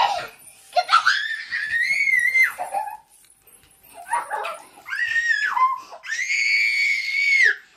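Young children shrieking in play: three long, high-pitched screams, each held steady, the middle one shorter.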